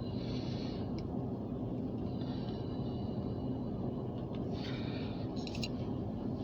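Steady low rumble of the short grain hopper freight train rolling by, with a couple of faint clicks and a brief high squeal about five seconds in.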